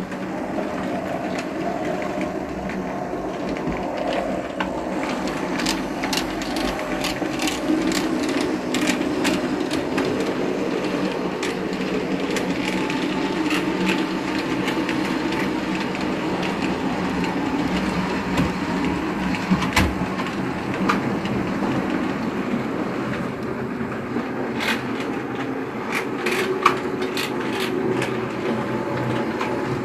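HO scale model train running on PIKO track: a steady rumble of motor and wheels, with clusters of sharp clicks as the wheels cross rail joints, thickest a few seconds in and again near the end.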